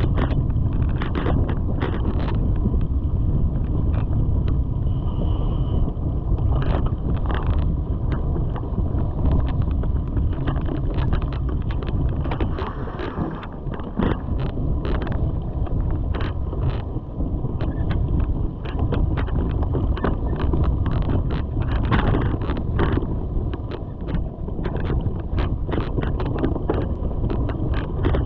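Mountain bike riding down a dirt woodland trail: wind rushing over the microphone and tyres rumbling, with frequent clicks and knocks as the bike jolts over the ground.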